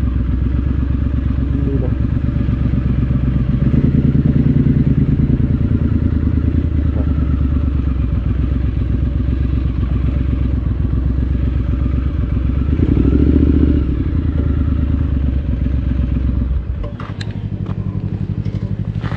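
Triumph Scrambler 900's parallel-twin engine running at low speed, its note swelling twice with the throttle. It then settles to a quieter idle about sixteen seconds in, with a few sharp clicks near the end.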